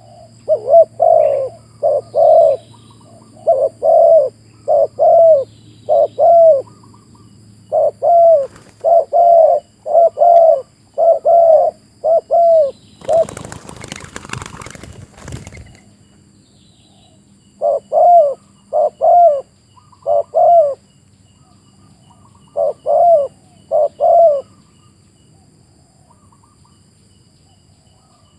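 Spotted dove cooing: runs of loud, short coo notes repeated over and over, pausing after the middle and resuming twice more. About halfway through, a noisy rustling burst lasting a couple of seconds, like wings flapping, cuts across the calls.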